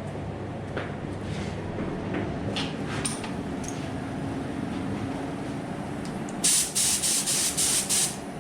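Spray gun loaded with red metal flake paint fired in about five short, loud hissing bursts near the end, run at low pressure for the flake. Before that, a steady low hum with a few faint clicks.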